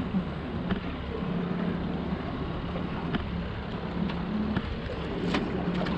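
Boat's outboard motor idling steadily with a low hum, over wind and water noise, with a few light clicks and taps from the gear on deck.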